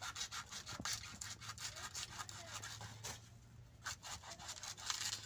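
Kitchen knife scraping and cutting into the thick, fibrous stalk of a dudh kochu (taro) plant in a quick, uneven run of rough strokes, with a short pause partway through.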